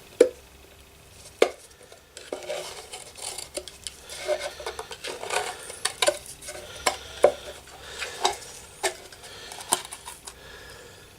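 Metal parts of an airbrush compressor being handled during disassembly: irregular light clinks and knocks, about a dozen, as pieces and tools are moved and tapped against the casing.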